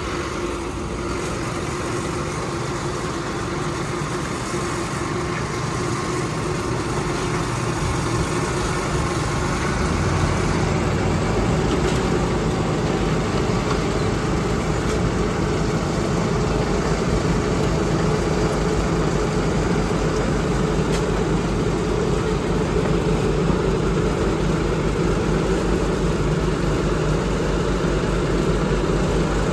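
Heavy engine of asphalt road-construction machinery running steadily at a low, even pitch, growing a little louder about ten seconds in.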